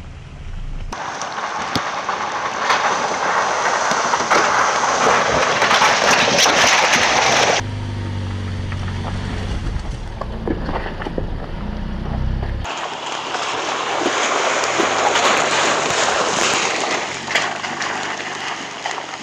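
Ford Bronco Everglades driving a wet rocky trail: tyres crunching and splashing over rock, gravel and puddles, with many sharp clicks. For a few seconds in the middle, the 2.3-litre EcoBoost four-cylinder engine gives a steady low drone, heard close up.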